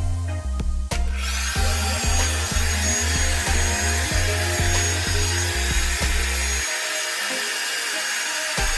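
Revlon One-Step hair dryer brush comes on about a second in and runs steadily: rushing air with a high motor whine. Background music with a steady bass beat plays along.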